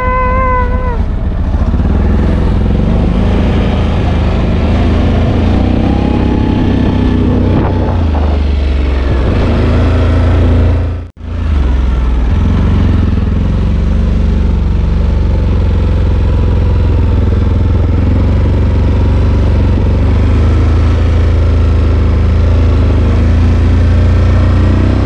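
ATV (four-wheeler) engine running while riding, its pitch rising and falling with the throttle over a heavy low rumble. The sound cuts out briefly about eleven seconds in.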